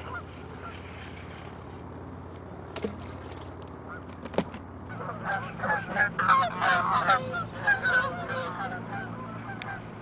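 A flock of geese honking: many short, overlapping calls start about halfway through and are the loudest sound. Beneath them runs a steady low hum, with two sharp clicks before the calls begin.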